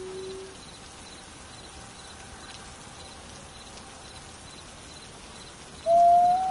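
Wolves howling: a long howl fades out about half a second in, a faint higher howl carries in the middle, and a loud, steady howl starts near the end. A faint, regular high chirping runs underneath.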